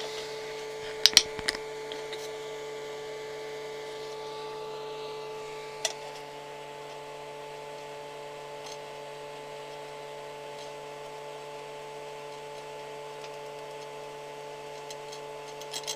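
Steady hum of electronics bench equipment running, with a few light clicks about a second in and another near six seconds, after which the hum gets a little quieter.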